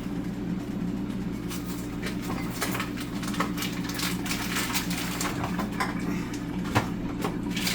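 Kitchen handling sounds: scattered light clicks and clinks of pots and utensils over a steady low hum.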